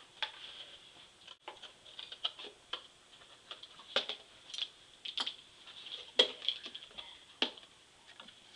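Small cardboard box being handled and worked by hand on a table: irregular light clicks and taps, with a few sharper knocks in the second half.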